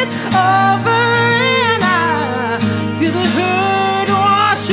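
A woman singing long, gliding held notes over acoustic guitar and fiddle in a slow country song.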